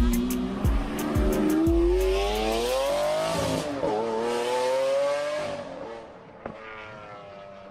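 A car engine revving, its pitch climbing steadily for about three seconds, dipping briefly, then climbing again, with tyres squealing through the middle. The sound fades away over the last couple of seconds.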